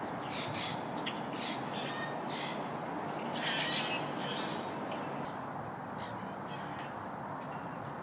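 Common grackles calling: a string of short, harsh, squeaky calls in the first half, over a steady background noise.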